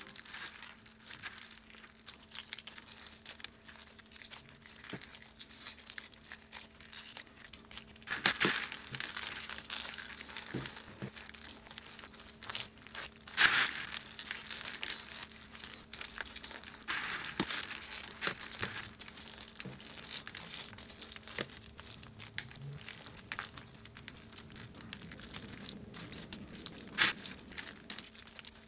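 Hands kneading clear putty through a tub of small foam beads: a continuous crinkling, crackling rustle of the beads shifting against each other and the putty, with several louder swishes as handfuls are scooped and pressed.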